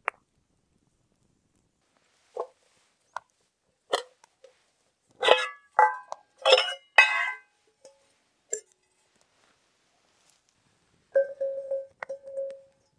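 Stainless steel mess kit pot, lid and wire handles clinking and knocking together: a string of separate metallic clinks, each with a short ring, busiest in the middle. Near the end comes a longer ringing scrape of metal.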